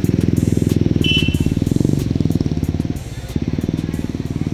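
Small motorcycle engine running close by at low speed, a steady rapid putter of even beats, dipping slightly about three seconds in. A brief high chirp sounds about a second in.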